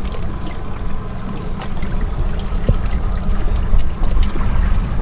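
Water sloshing and trickling against the hull of a small boat at sea, over a steady low rumble of wind on the microphone.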